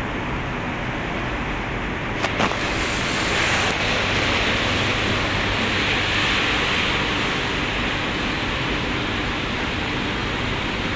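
Steady din of tea-factory machinery running, with a faint low hum under it and a couple of sharp clicks about two seconds in.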